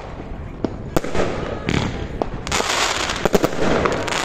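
Aerial fireworks going off: several sharp bangs, then dense crackling from a little past halfway as a glittering shell bursts.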